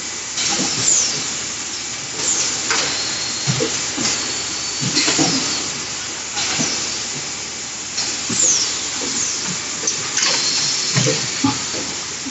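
Bottled water production line running: a steady hiss with knocks every second or two and short high squeals that fall in pitch.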